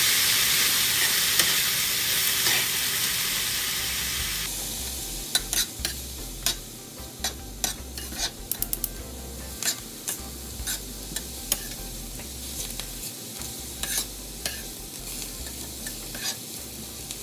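Diced onions sizzling in hot oil in a pan as they are browned, loud at first and fading. About four and a half seconds in, the sizzle drops suddenly to a quieter level, and a spatula clicks and scrapes against the pan many times as the onions are stirred.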